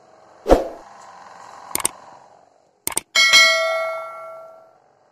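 A thump, a few sharp clicks, then a bell-like metallic ring with several overtones that fades away over about a second and a half.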